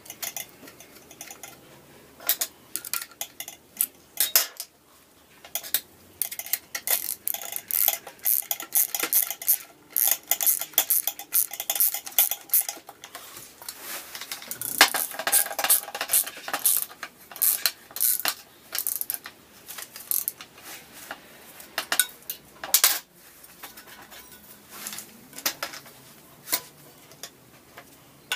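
Scooter parts and tools being handled during a rebuild: irregular metallic clicks, clinks and light clattering, with a short burst of ringing metal about halfway through.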